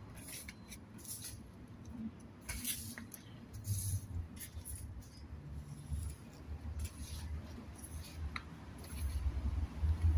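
Broom bristles sweeping a paved path in short, irregular scratchy strokes, over a low rumble that grows louder near the end.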